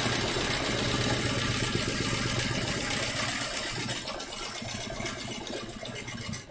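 Home sewing machine running fast, stitching free-motion quilting loops through a quilt sandwich: a fast, even stitching rattle that gets quieter over the last two seconds.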